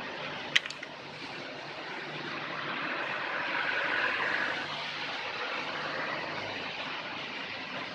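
Suzuki Baleno's engine running with the AC compressor on, a steady rough mechanical noise that swells about three to four seconds in. The uploader puts the compressor's rough 'ngorok' noise down to a defect in the piston and compressor block. A single sharp click comes about half a second in.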